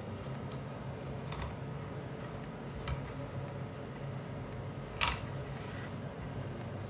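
A chef's knife clicking against a wooden cutting board three times, loudest about five seconds in, as a vanilla bean is split lengthwise, over a steady low hum.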